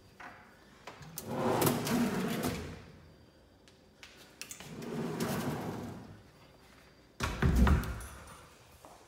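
Tall pull-out pantry unit with wire basket shelves sliding along its runners twice, each pass lasting one to two seconds, then shutting with a sudden heavy thump about seven seconds in.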